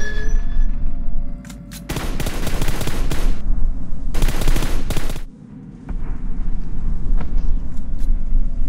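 Rapid automatic gunfire in long bursts, a battle sound effect, broken by short pauses about one and a half and five and a half seconds in.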